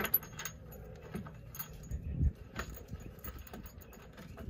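Light metallic clinks and taps of hand tools and hardware against the metal bracket of a truck air-spring kit, with a duller knock about two seconds in.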